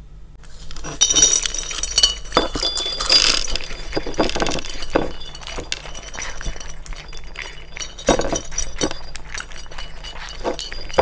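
Two toy poodles eating dry kibble from shallow dishes, close to the microphone: a dense run of quick clinks and crackles as kibble rattles against the dishes and is crunched. It starts about half a second in.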